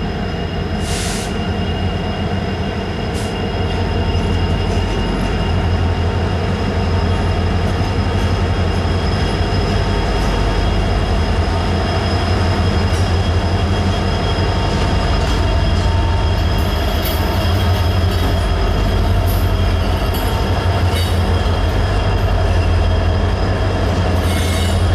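Union Pacific freight train rolling steadily past: a continuous deep rumble of wheels on rail, with steady high-pitched wheel squeal held over it. It gets a little louder about four seconds in.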